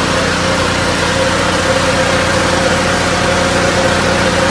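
Fire engine's engine idling steadily, with a constant hiss over it.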